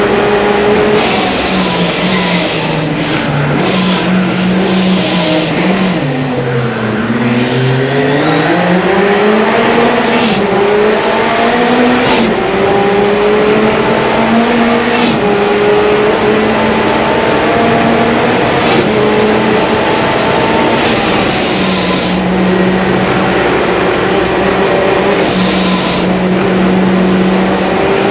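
Race-prepared VW Polo's engine, heard from inside the cabin, pulling hard with the revs held mostly high. Around six to eight seconds in the revs sink low, then climb back up. Short sharp noises cut in now and then.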